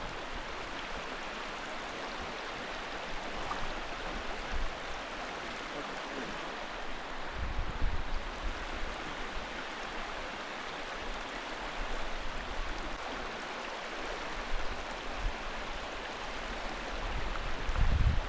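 Steady rushing of flowing river water, with a couple of brief low bumps about eight seconds in and near the end.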